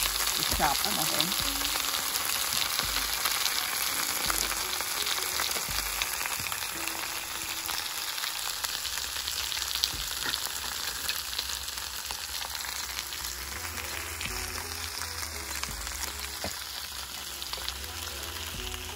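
Vegetables and tofu sizzling in an electric grill pan: a steady crackling hiss that gets a little fainter toward the end.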